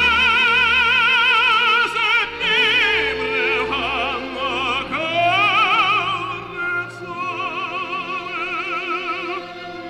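Operatic singing over an orchestra: long held notes with a wide, even vibrato, growing softer about seven seconds in.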